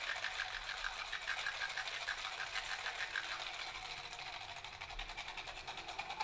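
A rapid, even clicking rattle, high-pitched with almost nothing low, within the performance's electronic music. It is brightest in the first half and thins somewhat after about three seconds.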